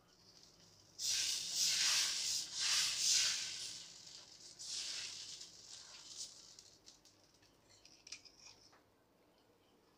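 Wheat rava dosa batter sizzling on a hot iron dosa tawa as it is ladled on and spread around with the ladle. The hiss starts suddenly about a second in, swells a few times, and fades away over the next several seconds.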